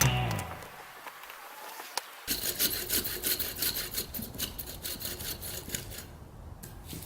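Hand saw cutting through a wet oak log, a run of quick back-and-forth rasping strokes that starts about two seconds in and fades near the end. Music fades out at the very start.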